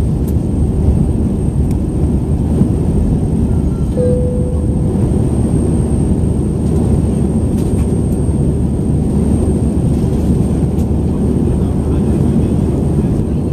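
Steady cabin noise of a jet airliner in flight, engine and airflow rumble heavy in the low end, heard from inside the cabin. A single short chime sounds about four seconds in and fades within a second.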